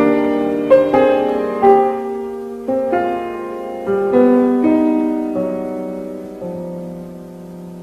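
Instrumental break of a song: piano playing slow chords, each note struck and ringing out, growing sparser and softer toward the end.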